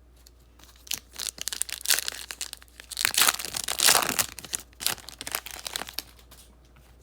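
Trading card pack wrapper being torn open and crumpled: a crinkling crackle that starts about a second in, is loudest around the middle and dies down near the end.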